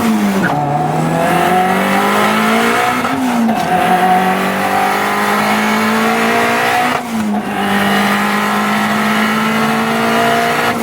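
Honda Civic's four-cylinder VTEC engine accelerating hard through the gears. Its pitch climbs, drops at each upshift (near the start, about three seconds in, and about seven seconds in), then climbs again, more slowly in the higher gears.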